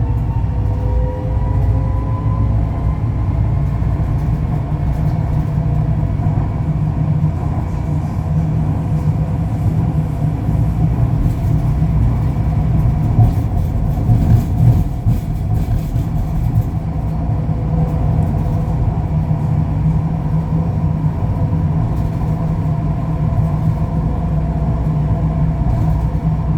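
Ui-Sinseol Line light-rail train running between stations: a steady heavy rumble with a motor whine of several tones. The whine rises in pitch over the first couple of seconds as the train picks up speed.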